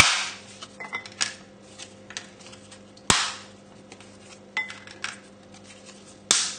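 Dry lasagne sheets being snapped by hand: three sharp cracks about three seconds apart, with lighter clicks of the brittle pasta between them.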